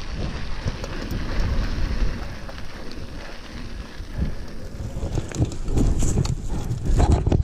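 Mountain bike rolling over a rough dirt trail: wind rumbling on the microphone, tyre noise, and the bike rattling and clattering over bumps, with the clattering thickening in the second half.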